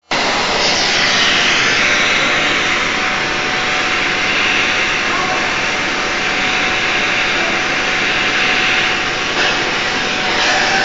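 Gas torch flame hissing steadily while brazing a chiller's heat-exchanger coil.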